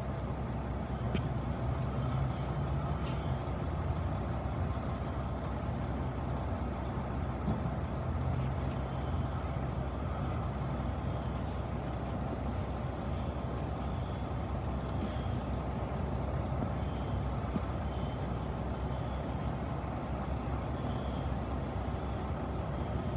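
Steady low rumble of a large idling vehicle engine, with faint short high-pitched tones coming and going.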